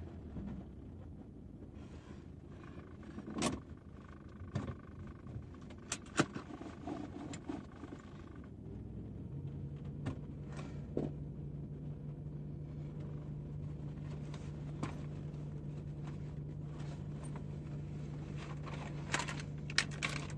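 Inside a stopped car: a low steady hum with scattered sharp clicks and light knocks, most of them between about two and eight seconds in. About nine seconds in, a steadier low drone sets in and holds.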